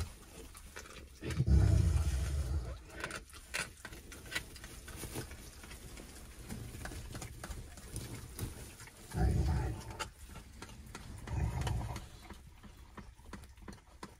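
Three-week-old Great Pyrenees puppies growling as they play-fight: three short, low grumbling growls, with scattered clicks and rustles between them.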